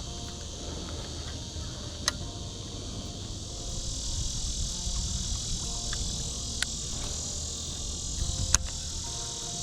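Steady high-pitched insect chorus, with three sharp clicks spread through it.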